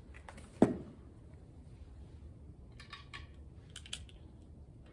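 A sharp thump about half a second in, then soft rustling and a few light clicks as papers are picked up and handled.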